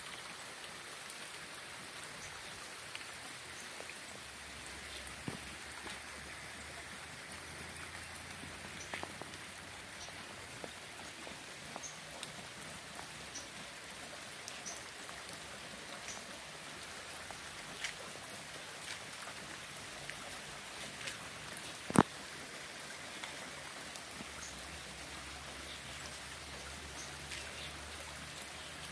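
Steady rain falling, with scattered individual drops ticking close by and one much louder sharp drop or knock about two-thirds of the way through.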